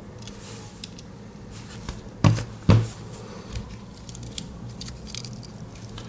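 Light metal clicks and taps of a Swiss Army knife being handled, its scissors among the tools, with two louder knocks close together a little over two seconds in.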